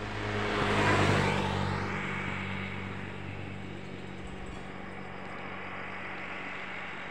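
A road vehicle passing close by, loudest about a second in and then fading away, over a steady low hum.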